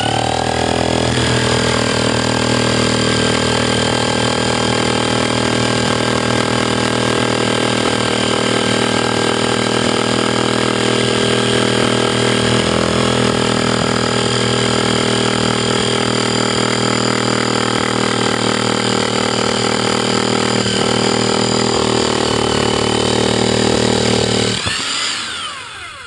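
Hammer drill with a 2-inch core bit boring through face brick, its motor running steadily under load, then winding down near the end once the hole is through.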